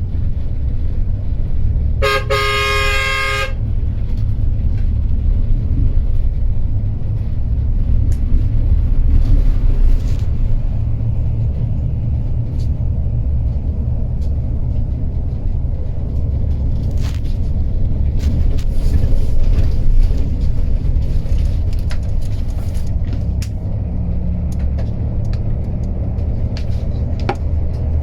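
Steady low rumble of an intercity coach travelling on the highway, heard from on board, with scattered knocks and rattles. A vehicle horn sounds once for about a second and a half near the start.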